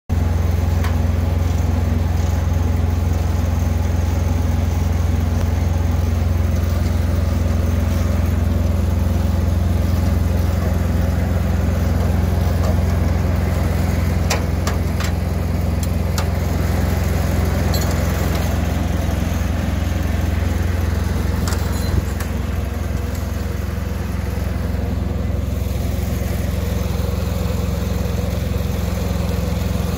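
A heavy truck's diesel engine idling steadily. Several short metallic clinks of hand tools on hardware come about halfway through, and there is a single knock a little later.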